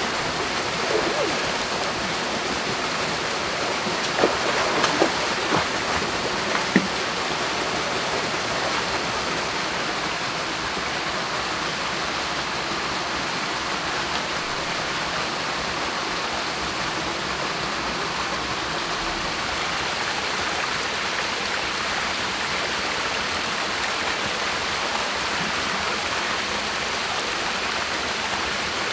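Small waterfall pouring into a rocky pool: a steady rush of falling water. A few brief sharp sounds come between about four and seven seconds in.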